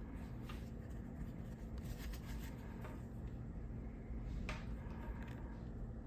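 Faint handling noises, light rubbing and a few soft clicks, over a steady low hum.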